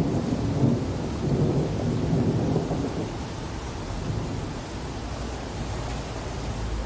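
Rumbling thunder over steady rain, the storm sound effects closing out a music track. It gets quieter about three seconds in.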